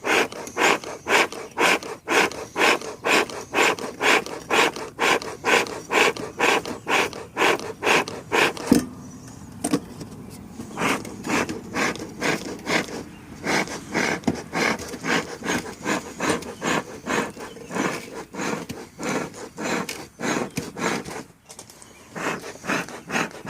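Bee smoker's bellows being pumped in a steady rhythm of about two squeezes a second, each a puff of air with a rubbing creak of the bellows. A knock comes about nine seconds in, and after a short pause the pumping carries on more softly.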